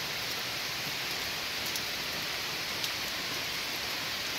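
Heavy rain falling steadily on trees and foliage, an even hiss, with one sharper drop tap about three seconds in.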